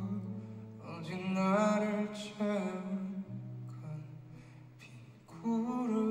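Live ballad: a male voice singing softly over chords from a Yamaha S90 ES stage keyboard, with held low bass notes under them. The voice drops out for a moment in the middle and comes back in near the end.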